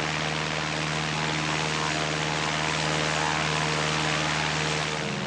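Single-engine light aeroplane's piston engine and propeller running steadily in flight, a constant drone that holds one pitch throughout.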